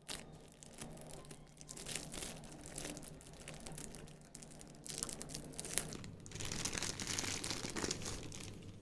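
Packaging crinkling and rustling in irregular crackles as it is handled and opened around the newly unboxed speaker.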